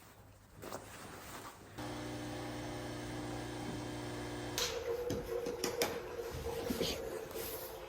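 A small machine hums steadily, starting about two seconds in. About halfway through it gives way to a higher steady tone with scattered clicks and knocks.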